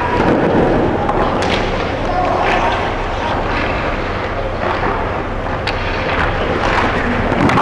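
Goalie's leg pads and skates scraping and sliding across rink ice during butterfly slides, with a few sharp knocks, over a steady low hum.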